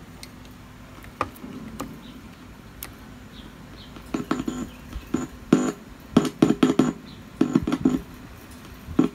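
Sony CFS-1000S boombox playing programme audio through its speaker while its circuit board is pressed by hand: a few sharp clicks, then broken bursts of sound from about four seconds in, cutting in and out. One channel is intermittently dropping out.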